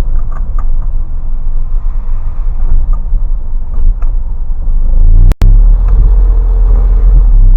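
Low rumble of a 20-foot Isuzu box truck driving, its engine and road noise heard from inside the cab. About five seconds in, the sound cuts out for an instant, then the rumble comes back louder.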